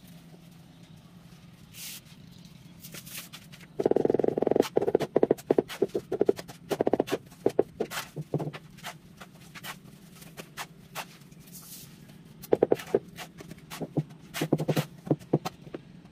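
Glazed floor tiles being tapped down into a wet mortar bed: clusters of quick, dull knocks, starting about four seconds in and coming again in short runs near the end.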